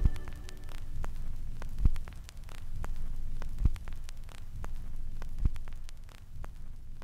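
Low hum and rumbling noise with a dull thump about every two seconds.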